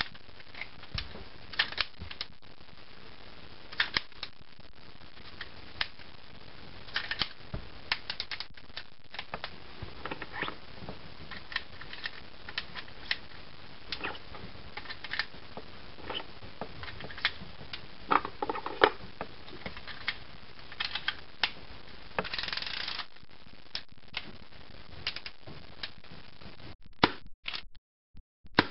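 Tanaka Colt Single Action Army airsoft revolver being worked by hand: irregular metal clicks and clacks from its hammer, cylinder and loading gate, at times several in quick succession.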